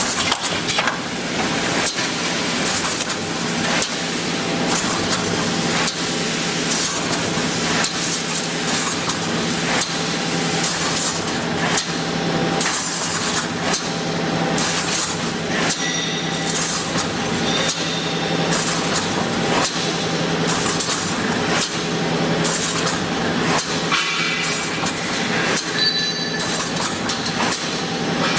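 Wire mesh fence panel welding machine running: continuous clattering and clicking over a steady low hum.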